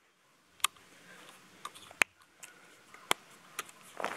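A scoped bolt-action rifle being handled: a handful of sharp, irregularly spaced metallic clicks.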